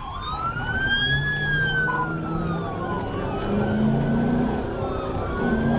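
Police car siren wailing, its pitch sweeping slowly up and down every two to three seconds, over the low running of a car's engine.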